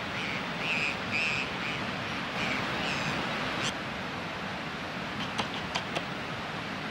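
Several short, high bird calls in the first few seconds over a steady rushing background, then a few sharp clicks about five seconds in.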